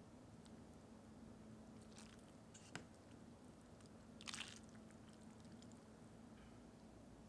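Near silence over a steady low hum, broken by a faint click a little under three seconds in and a short wet squish about a second and a half later.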